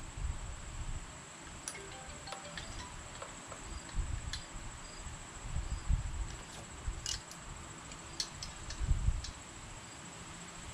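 Wrench clinking and clicking against the starter mounting bolts of a Briggs & Stratton engine as they are tightened, with a few dull handling knocks, over a steady high-pitched background tone.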